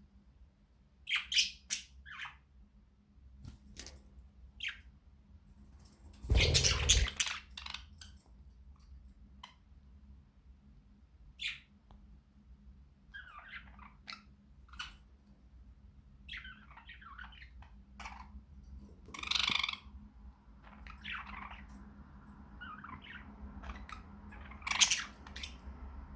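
Budgerigars chirping and squawking in scattered short calls, with a louder, noisier burst about six seconds in and louder calls later on.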